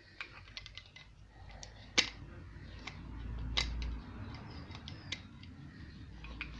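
Small metallic clicks and ticks of pliers gripping and working a metal pin in a Mazda MX-5's plastic roof latch housing, with two sharper snaps about two seconds and three and a half seconds in.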